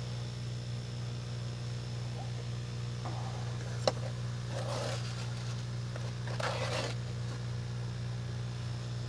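Steady low hum from the running DIY froth flotation cell, with a few short wet scraping sounds as a flat paddle skims froth over the lip. There is a sharp click about four seconds in.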